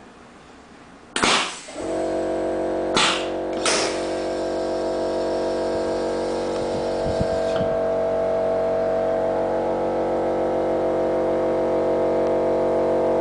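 Heat-set machine's pneumatics venting: a sharp hiss of released air about a second in, two shorter hisses soon after, and a fainter hiss that dies away. A steady pitched machine hum comes on just before two seconds in and holds as the loudest sound.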